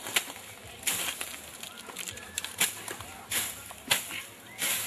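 Tall grass and weeds rustling and tearing as they are cleared by hand, in a series of short, sharp swishes at uneven intervals.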